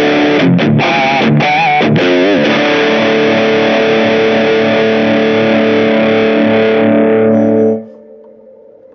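Grote 335-style semi-hollow electric guitar with P90 pickups, played with distortion. A short lick with vibrato on a couple of notes leads into a final chord that rings for about five seconds. The chord is cut off sharply near the end, leaving only a faint steady tone.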